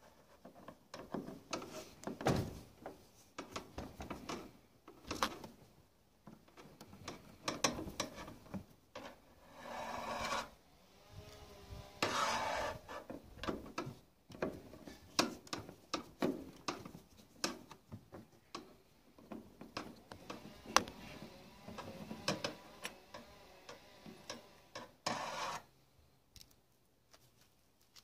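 Screwdriver turning out a screw that holds a tumble dryer's thermistor to its metal bracket: irregular clicks, knocks and metal scraping, with a few longer rubbing scrapes.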